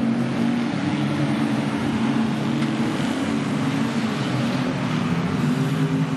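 Several stock car engines running together at racing speed on a dirt oval: a steady, loud drone whose pitch wavers slightly as the cars circulate.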